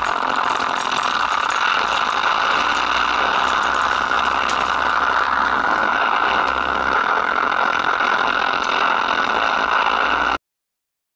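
Woofer driven by a homemade CD6283 amplifier on a 9 V battery, playing audio from a phone as a dense, steady sound without clear notes. It cuts off sharply about ten seconds in.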